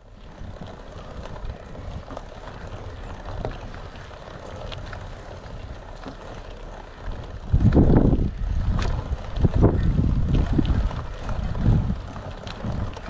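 Wind buffeting the microphone in low, gusty rumbles that grow much stronger about halfway through, with scattered clicks and crunches from mountain bike tyres on a stony dirt trail.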